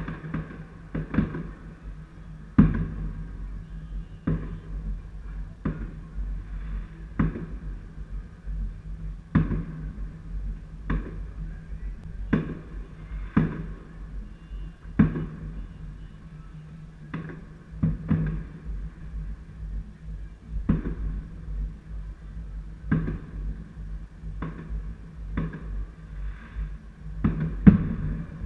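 Fireworks shells bursting: a steady run of sharp bangs, roughly one a second, each trailing off in a low rumble. One loud bang comes about two and a half seconds in, and the loudest comes just before the end.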